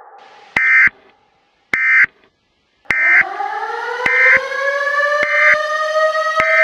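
Six short buzzy data bursts of an Emergency Alert System signal, about a second apart, typical of the end-of-message code. About three seconds in, a warning siren starts winding up, rising in pitch and levelling off into a steady wail under the last bursts.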